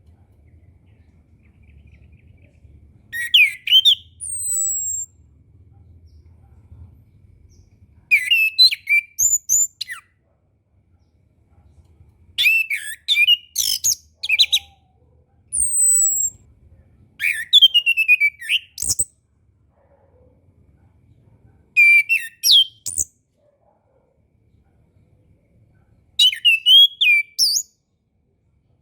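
Chestnut-capped thrush (anis kembang) singing: about seven short, varied phrases of quick whistles and trills, a few seconds apart, two of them ending in a high falling whistle.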